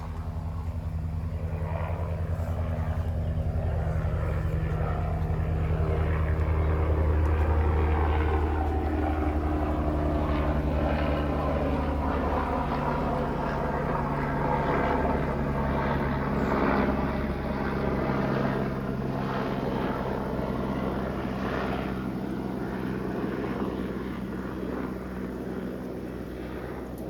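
Propeller airplane flying over, its engine drone swelling for the first several seconds and then slowly fading, the pitch sliding down as it passes.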